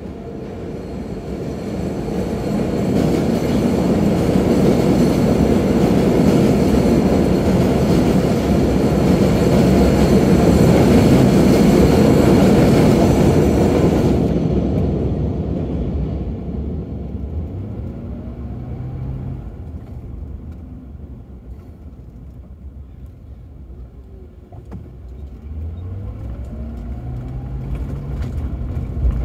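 Subway train running on the elevated steel structure overhead: a loud rumble with hiss that builds over the first few seconds, stops sharply about halfway through, then fades. After it, the Crown Victoria's 4.6-litre V8 pulls away, its note rising in steps as the car picks up speed.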